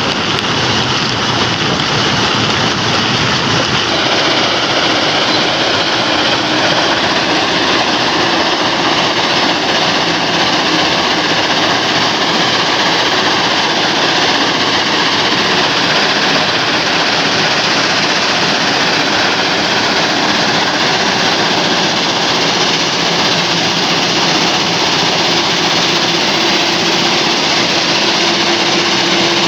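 Rock crusher machine running steadily under load, a continuous dense clatter and grind of stone being crushed with the machine's engine droning underneath.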